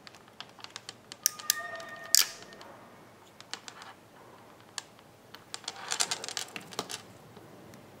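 Hand crimping tool crimping a pin connector onto a wire: a run of quick clicks, then loud snaps with a brief metallic ring about a second and a half and two seconds in. A second cluster of clicks and clatter follows about five and a half seconds in as the tool and wire are handled.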